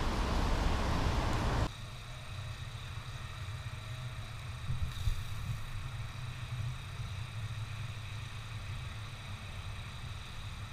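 Steady low rumble with hiss, picked up by an action camera's microphone inside a concrete culvert; a louder hiss cuts off abruptly about two seconds in and the low rumble goes on more quietly.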